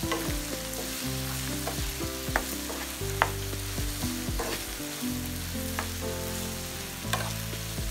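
Chopped onion, capsicum, green chillies and tomato sizzling in oil in a frying pan while a wooden spatula stirs the freshly added spices through them, with a few sharp clicks of the spatula against the pan.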